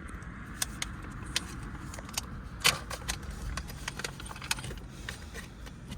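Light clicks and clinks of small metal parts being handled: a shift-knob adapter and its Allen key. There is one louder knock about two and a half seconds in.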